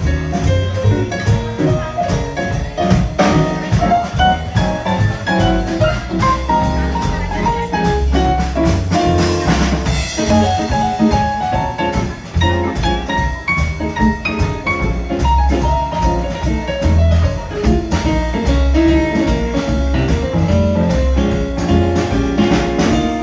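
Live jazz band playing an instrumental passage: a melodic solo line over bass and drum kit, with a cymbal swell about ten seconds in.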